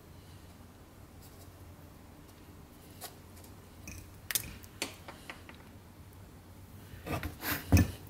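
Teflon tape being wrapped around a spark plug's threads: faint rubbing and crinkling of the tape, with a few light clicks in the middle. Near the end comes a quick cluster of louder clicks and knocks as the taped plug and the metal engine parts are handled.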